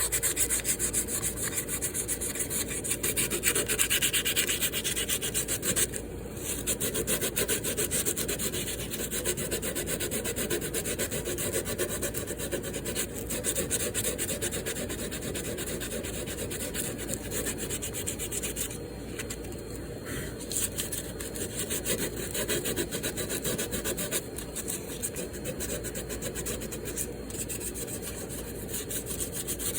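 150-grit sandpaper rubbed rapidly back and forth over the filed edge of a bronze Zildjian A Custom crash cymbal, smoothing the sharp edges left after a crack was drilled and filed out. A continuous scratchy sanding noise with brief let-ups a few times.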